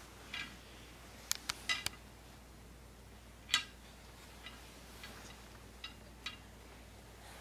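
Wooden beads on a bead-maze toy clacking against each other and the wire loops as they are pushed along: scattered sharp clicks, a quick run of four about a second and a half in, and the loudest click about three and a half seconds in.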